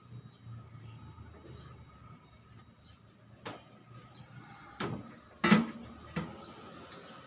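Knocks of an air-conditioner outdoor unit being lifted and set down on its metal wall bracket: a light click midway, then three sharp knocks over the last couple of seconds, the middle one loudest.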